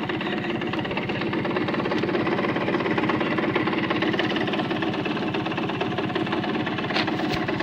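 Simson moped's single-cylinder two-stroke engine running steadily at low revs, a fast even putter. Two short clicks near the end.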